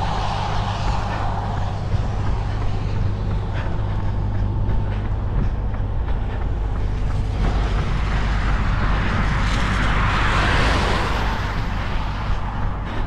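A road vehicle passing, its noise swelling from about seven seconds in and fading near the end, over a steady low rumble.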